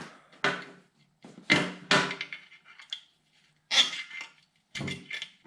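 Hand tools prying a steel frost plug out of a 454 big-block engine block: a series of about five short metallic scrapes and knocks with pauses between them as the plug is worked loose.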